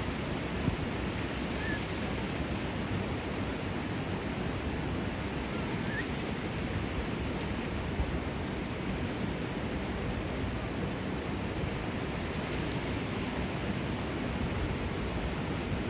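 Steady rushing of flowing water from the hot-spring pool and its surroundings, with a couple of faint short chirps.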